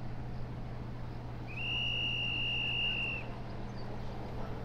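A high, steady whistle-like tone held for about a second and a half in the middle, over a steady low hum.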